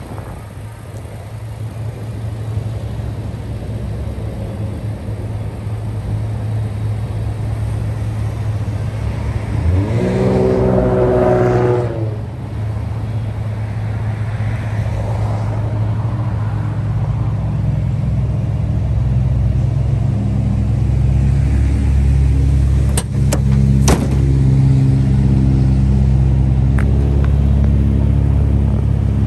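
2006 Toyota Tacoma TRD Offroad's 4.0-litre V6 idling, with one brief rev about ten seconds in. The exhaust gets louder in the last third as it is heard close to the tailpipe, with a few sharp clicks a little before the end.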